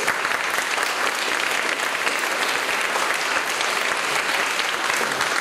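Audience applauding, many hands clapping in a steady, dense wash.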